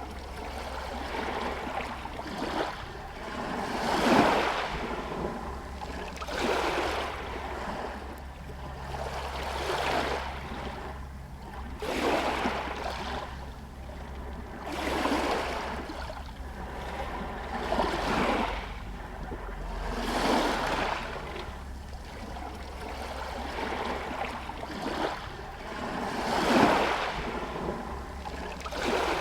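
Small Adriatic Sea waves lapping against a pier and shore stones, a soft wash that swells and fades every few seconds.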